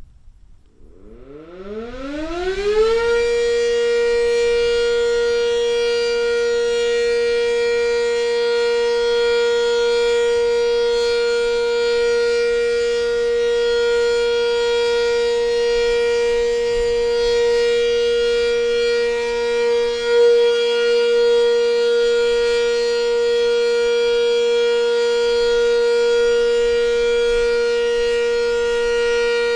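Sentry 10V outdoor warning siren starting up about a second in, its pitch rising for about two seconds, then holding a steady alert tone.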